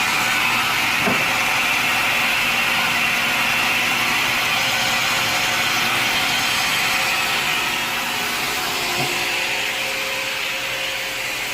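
Sawmill saw running steadily through wood, easing slightly about eight seconds in.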